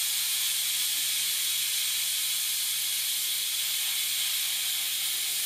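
Prestige Popular aluminium pressure cooker releasing steam in a steady hiss: the pressure-release 'whistle' that shows the cooker is up to pressure.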